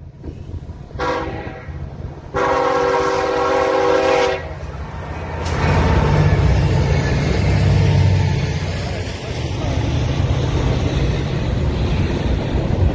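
Diesel freight train horn giving a short blast about a second in, then a long blast, the close of a grade-crossing signal. From about five and a half seconds, two CN SD75I diesel locomotives pass close with a loud engine rumble, followed by the steady rolling of double-stacked intermodal cars.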